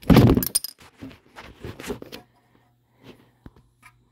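Hand-tool clatter at a differential drain plug: a loud scraping knock at the start as the ratchet and socket come off, then a few lighter clicks and taps over the next two seconds as the plug is handled.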